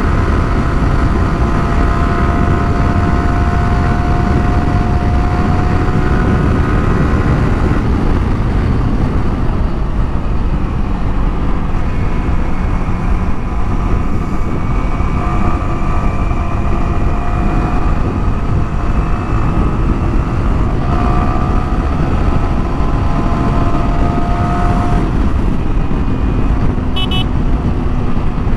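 Yamaha R15's single-cylinder engine running at highway speed in sixth gear, under heavy wind noise on the microphone. Its whine fades about eight seconds in as the bike slows, then climbs again twice as it accelerates.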